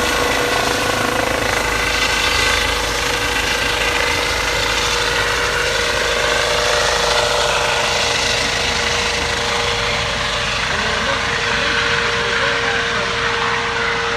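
A motor running steadily, a continuous drone with a constant hum and a rough, rapid pulse underneath.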